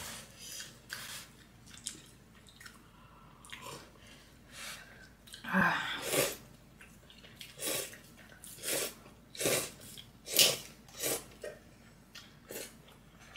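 Close-miked eating sounds: a series of short, wet chewing and mouth noises, coming about once a second and heaviest in the second half.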